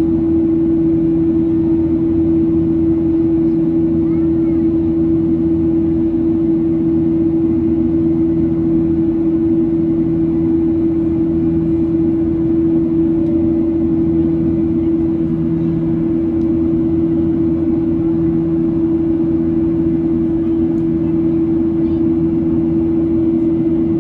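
Cabin noise of a Boeing 737-800 in flight, heard from inside: a steady engine drone and airflow rush with a strong, unchanging hum.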